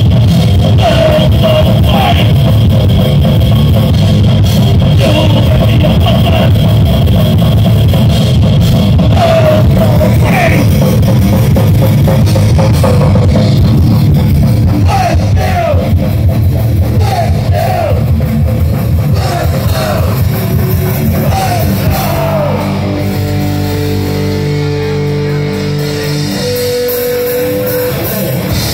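A live rock band playing loud and distorted: electric guitars, bass and a drum kit, with guitar notes bending in pitch over the top. About 22 seconds in, the full band drops away and held guitar notes ring on, ending on one sustained high note.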